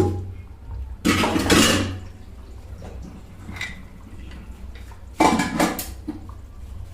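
A metal utensil knocking once, then scraping twice against a metal cooking pot, each scrape about a second long.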